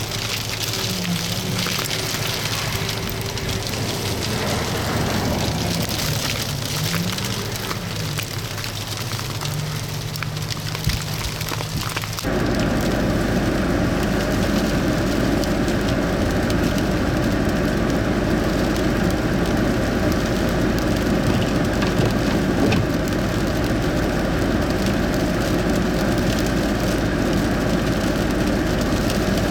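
Steady hiss of winter precipitation falling and pattering. About twelve seconds in it switches abruptly to a louder, denser hiss with a steady low hum underneath.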